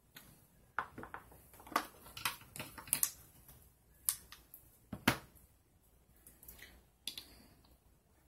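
Irregular light clicks and taps of a metal sunglasses frame and a small precision screwdriver being handled and set down on a plastic cutting board, the loudest about five seconds in.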